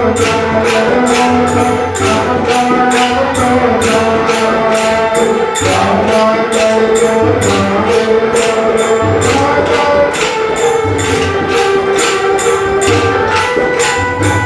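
Devotional music: jingling percussion keeps a steady beat of about three strokes a second under a held, slowly changing melody.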